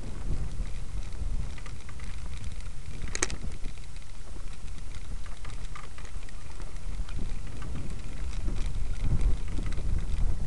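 Wind rumbling on the microphone of a camera moving along, with scattered small clicks and rattles and one sharp click about three seconds in. The rumble grows louder near the end.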